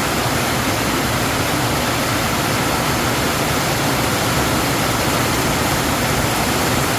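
Heavy rain coming down on a metal shed roof, heard from inside the shed: a loud, even hiss.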